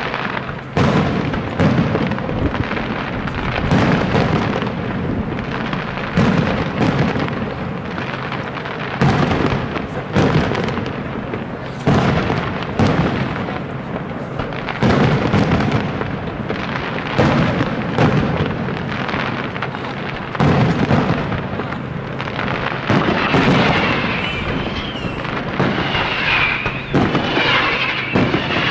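Aerial fireworks shells bursting one after another, a sharp bang about every second or so, each followed by a rolling boom. In the last few seconds a dense high crackling joins in over the bangs.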